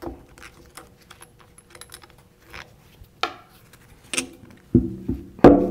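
Scattered metallic clicks and knocks from a Danfoss PVG 32 valve's PVE actuator being worked loose and lifted off the valve body, with a few sharper knocks in the second half, the last two ringing briefly.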